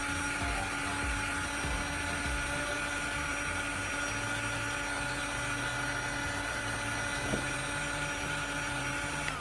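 Heat gun running steadily, its fan blowing with a constant whine and hiss, as it heats a section of PVC pipe to soften it.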